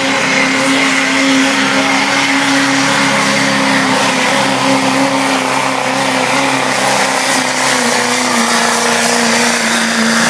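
Diesel pickup engine held at high revs under full load, pulling a weight-transfer sled. It runs steadily, and the pitch sags slightly near the end.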